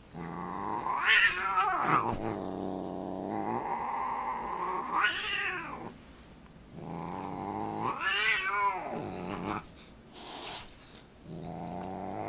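Siamese cat yowling and growling in long, drawn-out calls that swell up to a higher wail and sink back, with short pauses about halfway through and near the end.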